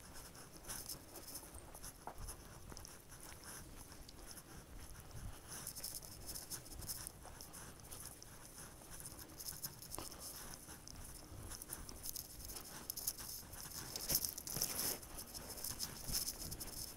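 Faint crunching and rustling of footsteps on a dry dirt trail strewn with dead grass and fallen leaves, in short scratchy bits that come and go.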